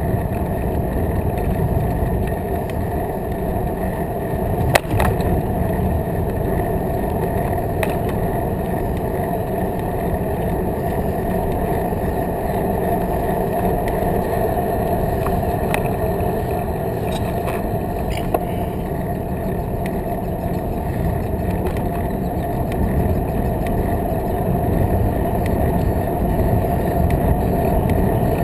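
Bicycle riding along a paved path, a steady rumble of tyre, wind and mount vibration picked up by a bike-mounted GoPro. There is one sharp knock about five seconds in and a smaller tick later.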